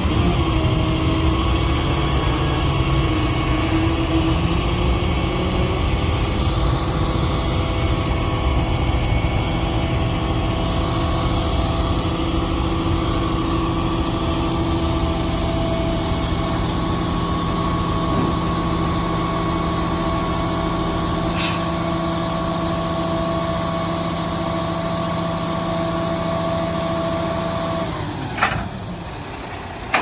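Freightliner roll-off truck's diesel engine running steadily, driving the hydraulic hoist as a loaded dumpster is pulled up onto the bed, with a steady whine over the engine drone. Near the end the engine sound drops and the hoist stops, followed by a single clunk.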